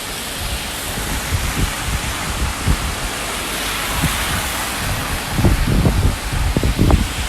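Steady heavy rain falling, with gusts of wind buffeting the microphone in low rumbles, most often in the last couple of seconds.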